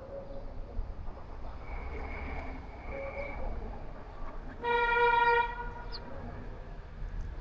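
A vehicle horn sounds one short, steady-pitched toot about two-thirds of the way through, over a low steady background rumble.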